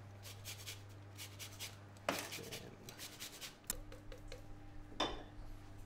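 Lemon being grated on a fine rasp grater for its zest: quick, light scraping strokes, several a second, for the first two seconds, followed by a few louder single scrapes.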